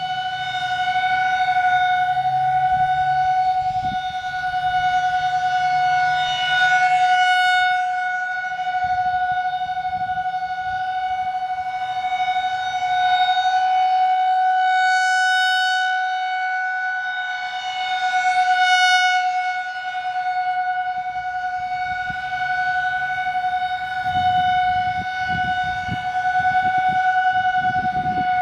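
Federal Signal 2001-SRNB rotating outdoor warning siren sounding its steady single-tone Alert signal. It turns slowly at 2 RPM, so the tone swells and fades as the horn sweeps past. A low rumble comes up near the end.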